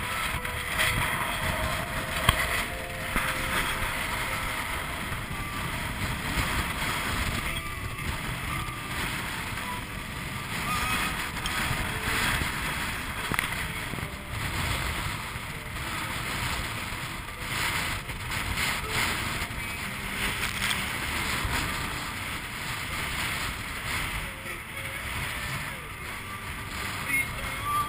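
Strong force 7 wind buffeting the microphone, with sea water rushing along the hull of a Swan 48 sailing yacht driving hard through rough water. The noise swells and eases with gusts and passing waves.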